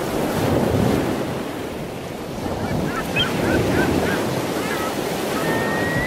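Ocean surf washing in a steady rush, with a string of short, chirping bird calls starting about halfway through.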